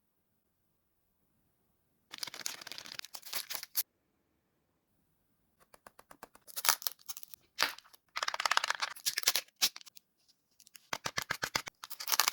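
Mystery-box packaging being torn open and crinkled by hand: four bursts of rapid crackling and tearing, separated by short silences.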